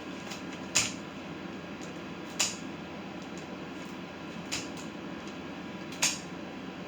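Flower stems being cut: four short, sharp snips about one and a half to two seconds apart, the third fainter, over a steady room hum.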